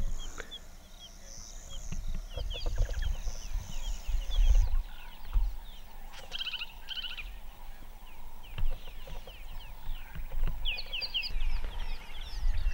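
Bush at dusk: birds giving short, repeated chirping calls, over a steady high insect trill that stops about a third of the way through, with a low rumble underneath.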